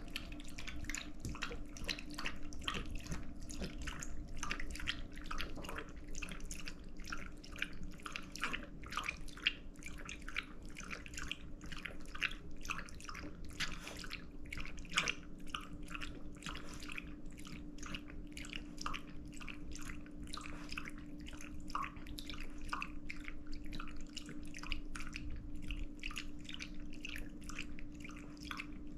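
A chihuahua's wet mouth sounds as it eats chicken: a steady run of sharp smacking and licking clicks, about three a second, over a faint steady hum.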